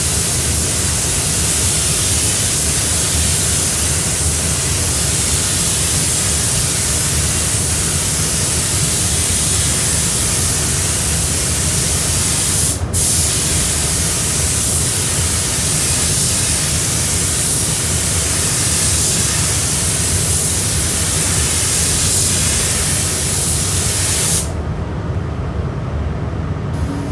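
Automotive paint spray gun hissing steadily as paint is applied, with a steady low hum underneath. The hiss breaks off for a moment about halfway through and stops a few seconds before the end, leaving the lower hum.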